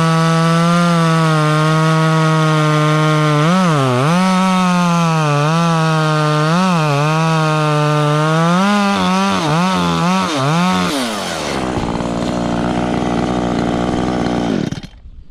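Echo CS-3510 two-stroke chainsaw running at high revs, its pitch dipping again and again as the chain bites into branches. About eleven seconds in it drops to a low idle, then it stops near the end.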